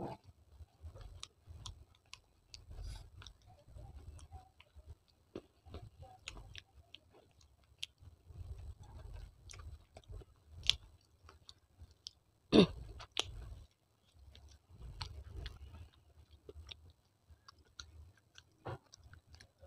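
Close-miked chewing of hard baked-clay pieces: a run of small sharp crunches and clicks, with one much louder crunch about two-thirds of the way through.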